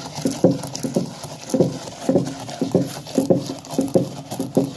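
Hand-turned stone wet grinder (aattu ural): the cylindrical stone pestle rolls round the stone bowl and knocks against it about two to three times a second, slightly unevenly, as it crushes soaked whole green gram and rice that are still mostly unbroken.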